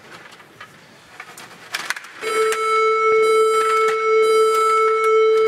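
Electronic buzzer sounding one steady, loud tone that starts about two seconds in and holds for about three and a half seconds. Before it come a few sharp clicks from the table hockey game: rods and puck knocking.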